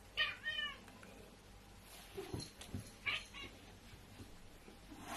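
Cat meowing twice: a short wavering call at the start and another about three seconds later, with a few soft thumps between.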